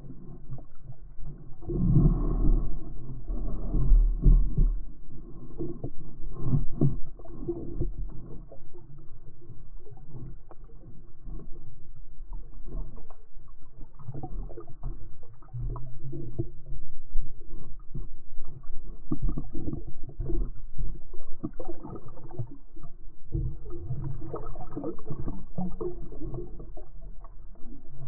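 Muffled water sound heard through a GoPro's waterproof housing: low rumbling and sloshing of water moving around the camera, with scattered small knocks.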